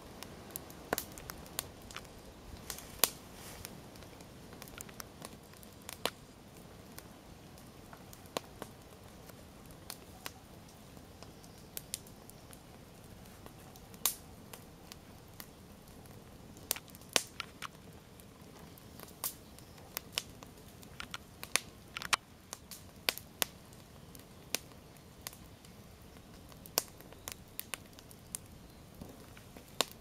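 Wood campfire of burning logs, crackling with irregular sharp pops, one or two a second, over a faint steady hiss.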